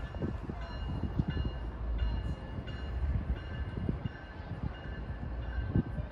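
Low rumble of distant BNSF diesel locomotives, with wind buffeting the microphone. Over it, a grade-crossing bell rings about twice a second.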